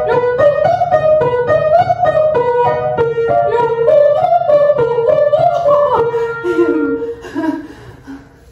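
A woman singing a vocal warm-up exercise over instrumental accompaniment: a quick run of short notes stepping up and down that stops about six seconds in, followed by softer sounds as she breaks into laughter.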